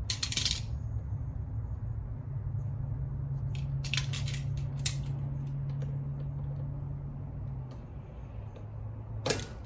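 Small metal clicks and scrapes of a roller-chain master link and pliers being worked on a minibike drive chain, a few at the start, a cluster in the middle and a sharper one near the end, over a steady low hum.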